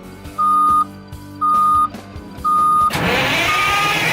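Pre-start warning alarm beeping about once a second with a steady high tone. About three seconds in, the horizontal grinder's diesel engine cranks and fires, a sudden loud rush of engine noise with the warning beep going on underneath.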